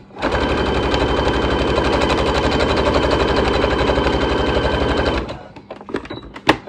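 Electric sewing machine stitching at a steady speed through layers of cotton fabric, a fast even run of needle strokes for about five seconds, then stopping. A single sharp click near the end.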